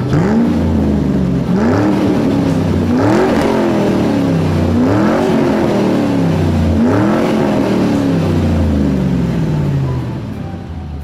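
Electronic engine-revving sound effect from a child's battery-powered ride-on toy motorcycle, played through its speaker. Each rev rises quickly in pitch and then sinks slowly; it repeats about five times and fades near the end.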